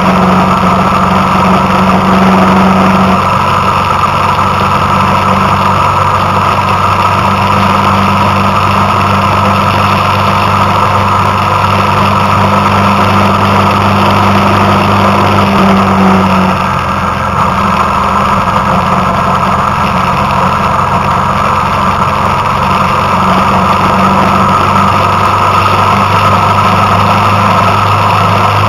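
Engine of a moving road vehicle running steadily under way, with road and wind noise; the engine note shifts slightly a couple of times and dips briefly about halfway through.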